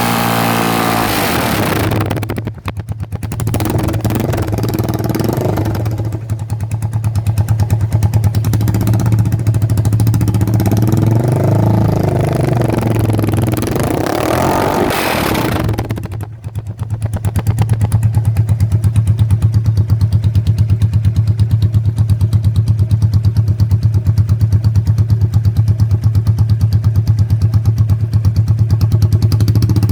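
Italika FT250TS motorcycle's 250 cc engine running with the exhaust removed, very loud. A rev falls back at the start, the engine stumbles briefly about 3 and 16 seconds in, and it revs up and back down around 12 to 15 seconds. After that it settles to a fast, even idle.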